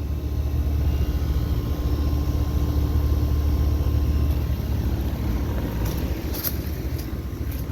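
Central air-conditioner condensing unit running: a steady low compressor hum with its fan, which fades out about four seconds in. A few sharp clicks follow near the end.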